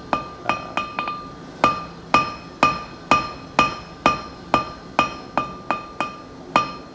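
Hammer blows on a hot silicon bronze bar over an anvil, about two strikes a second with a brief pause about a second in, each blow ringing out with a clear metallic tone.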